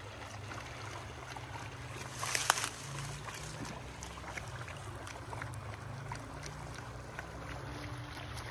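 Small creek flowing and trickling over grass and stones, with a low steady rumble under it and a brief louder rush of noise about two seconds in.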